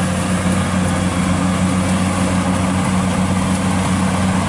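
Kubota DC-95 combine harvester running steadily while harvesting rice: a steady diesel engine drone with a broad mechanical rush from the machine.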